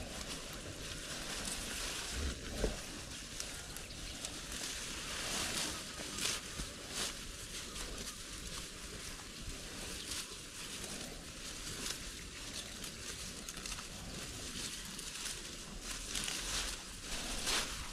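Faint outdoor ambience: a steady hiss with scattered light rustles and clicks, and one soft thump a couple of seconds in.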